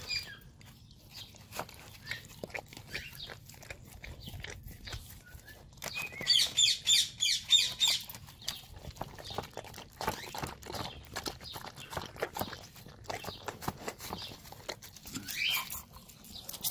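Husky chewing eggs and crunching eggshells: a string of small irregular clicks and cracks. About six seconds in, a bird chirps rapidly for a couple of seconds.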